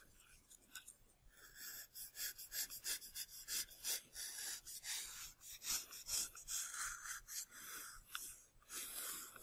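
Knife blade shaving thin layers off a polystyrene-foam model fuselage: a quick run of short scraping strokes, two or three a second, starting about a second in.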